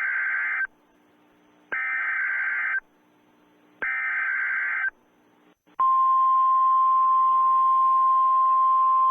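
Emergency Alert System SAME header: three bursts of warbling digital data tones, each about a second long and about two seconds apart, the first already under way. About six seconds in, a single steady attention tone of about 1050 Hz starts, in the weather-radio style, marking the start of a new alert.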